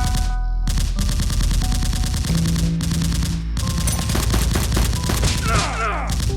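Rapid automatic gunfire in long continuous bursts, breaking off briefly twice, over background music.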